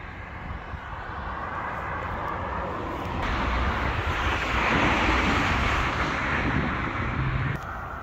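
The rumble of a passing vehicle, swelling to a peak about halfway through and then fading. The sound jumps up suddenly about three seconds in and drops suddenly near the end.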